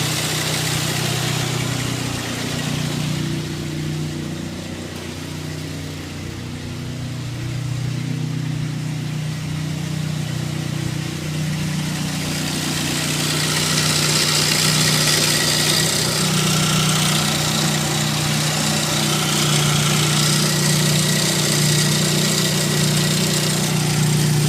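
2003 Saab 9-3 SE Turbo engine idling with a steady, loud drone; the sound grows louder and hissier about halfway through. The owner finds the engine super loud since an oil change and engine flush, and says the muffler is not the cause.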